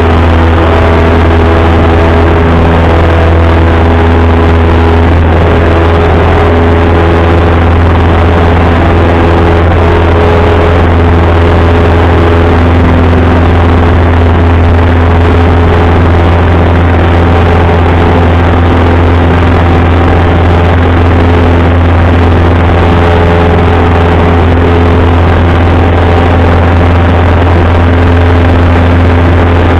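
Single-engine light aircraft's engine and propeller running steadily, heard from inside the cockpit: a loud, even low hum with steady tones above it.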